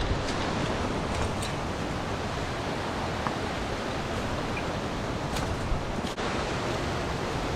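Mountain stream water rushing steadily over rocks in a gorge, with a few faint clicks.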